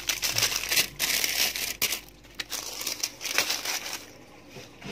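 Plastic ice-cream wrappers and bags crinkling as a hand rummages among them. The crackling is densest in the first two seconds, comes again in a short burst about halfway through, then thins out.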